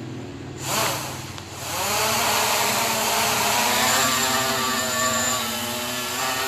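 Electric motors of an FPV radio-controlled aircraft spinning up in a rising whine, then running steadily at throttle. A brief rush of noise comes just before the motors rise.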